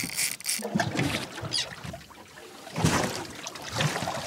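Water lapping and sloshing against a boat's hull, coming and going and louder near the end.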